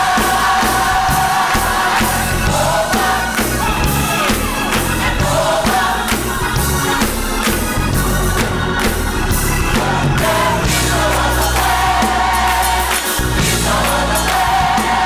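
Gospel mass choir singing loudly in full voice, holding long notes over a steady beat.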